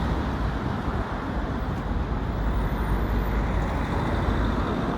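Steady street traffic noise, an even rumble with no separate events.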